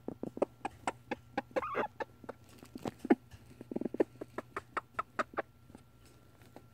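Easter Egger hen purring over her eggs as she sits on them: soft, short clucks in a quick, irregular run, with a higher note about one and a half seconds in. The clucking stops a little after five seconds.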